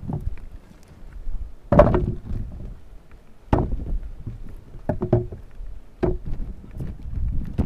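Small red onions being set down one at a time on a banana leaf, giving several short, soft knocks a second or so apart over a low wind rumble on the microphone.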